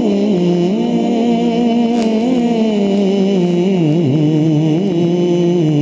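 A solo male voice sings an Urdu devotional kalam into a handheld microphone, drawing out long, slowly wavering held notes.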